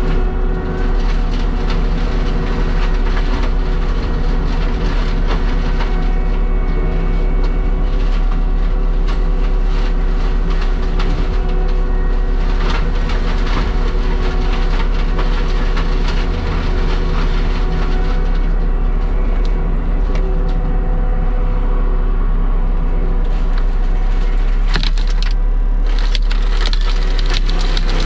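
Heavy diesel land-clearing machine running at a steady engine speed while wood cracks and splinters as brush and trees are broken up. Sharper cracks stand out near the end.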